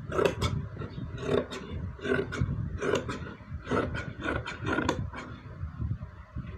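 Scissors cutting through fabric in a quick series of crunchy snips, about two a second.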